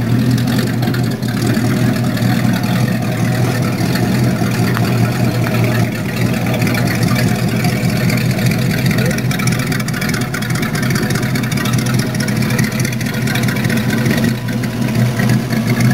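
Rat rod's exposed V8 engine running steadily through short side-exit headers, a loud, even exhaust note with no marked revving.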